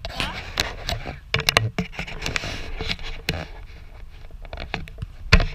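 Scraping, rubbing and knocking right on an action camera's microphone as the camera is handled and turned, with a sharp thump near the end.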